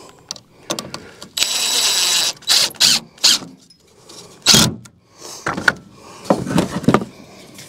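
DeWalt cordless impact driver driving 1¼-inch wood screws: one continuous run of about a second, then a series of short bursts as the screws are seated.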